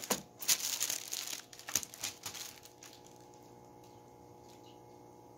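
Clear plastic shrink-wrap on a four-pack of firework tubes crinkling as the pack is handled and turned over, for about the first three seconds; after that only a faint steady hum remains.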